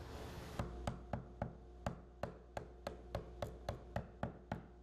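A quick run of light, sharp taps, about three a second, over a steady low hum.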